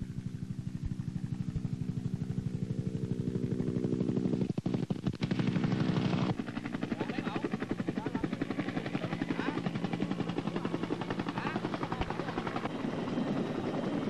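Bell UH-1 "Huey" helicopter flying low, its two-bladed main rotor beating in a fast, even pulse over a steady engine hum. About six seconds in the sound turns noisier and rougher, but the rotor beat carries on.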